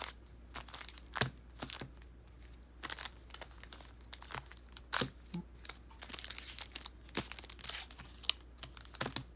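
Foil trading-card packs being handled and sorted on a table: wrappers crinkling, with scattered short crackles and taps, busiest about two-thirds of the way through.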